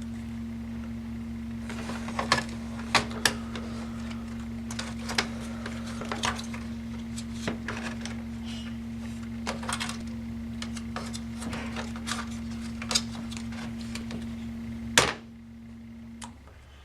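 Irregular small clicks and taps of plastic and metal laptop parts being handled and pried apart during disassembly, over a steady electrical hum that cuts off with a loud click near the end.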